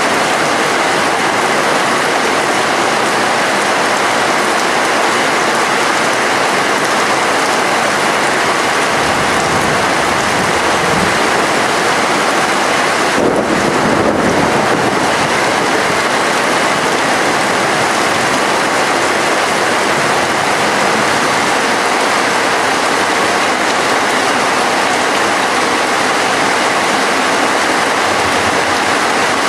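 Rain falling steadily, a loud even hiss.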